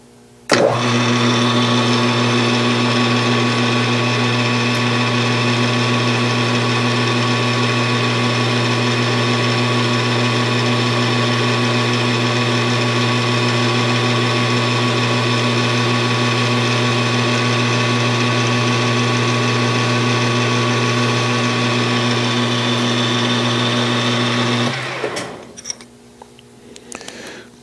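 Metal lathe starting up and running at a steady speed, with an even motor hum, while it takes a light 2-thou cut on a small turned lifter for a model radial engine. About 25 seconds in it is switched off and winds down, followed by a few light clicks.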